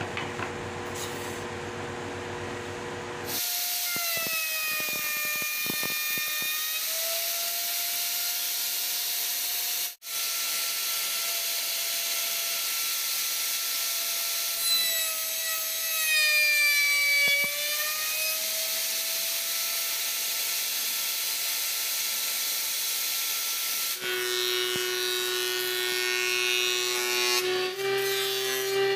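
Woodworking power tools cutting wood. A high-pitched machine whine runs steadily, its pitch sagging twice as a board is fed into the cutter. Near the end a different machine, a jointer-planer, runs with a lower hum.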